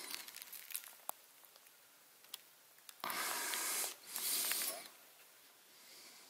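Hot water poured from a titanium pot into a single-serve pour-over coffee filter, in short spells: a pour trailing off at the start, then two splashing pours of about a second each, about three and four seconds in, the second rising slightly in pitch as the filter fills.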